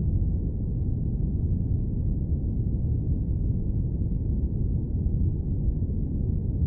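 Airplane cabin noise: a steady, deep rumble with almost no hiss, unchanging throughout.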